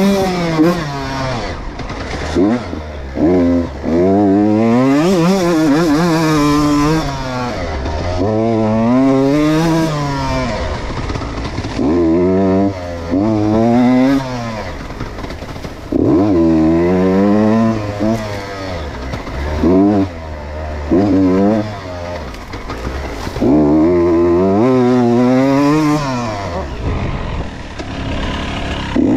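Two-stroke engine of a 2019 Beta RR Racing 125 enduro motorcycle being ridden hard. It revs up sharply and drops back again and again, with short throttle cuts between the bursts.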